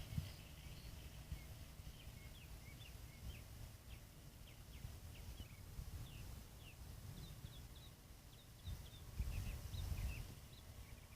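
Small birds chirping with many short, quick calls, over a low rumble of handling or wind on the microphone that swells briefly near the end.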